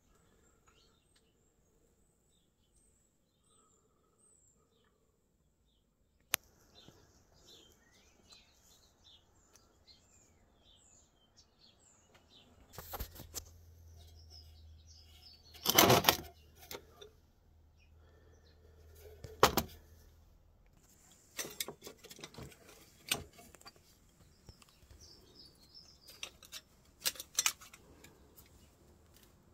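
Handling noise from dismantling an old electricity meter: a sharp click, then irregular knocks and rattles of metal parts. The loudest burst comes about halfway through and a cluster follows near the end. Birds chirp faintly in the background throughout.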